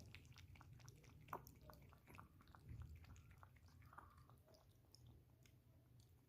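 Faint, quick clicking mouth sounds of a puppy chewing.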